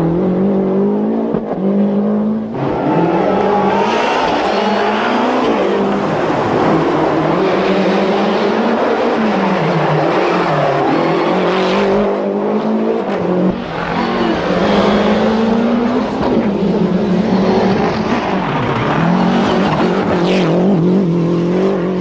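Lancia Delta HF Integrale rally car's turbocharged 2.0-litre four-cylinder engine revving hard through the gears, its pitch climbing and dropping again and again with the gearchanges.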